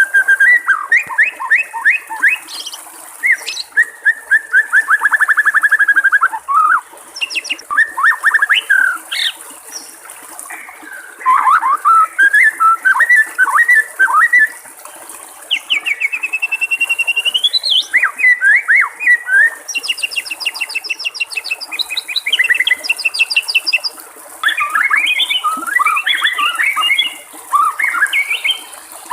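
White-rumped shama (murai batu) singing a long run of varied phrases, with rapid trills, gliding whistles and quick repeated notes, with short pauses between phrases, over a steady background of trickling water.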